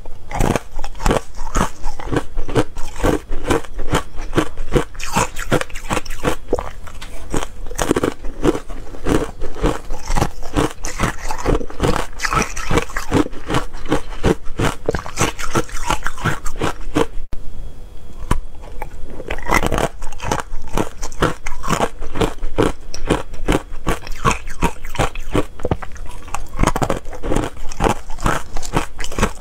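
Ice coated in matcha powder being bitten and chewed, with dense, continuous crunching of the ice in the mouth and a brief lull a little past halfway.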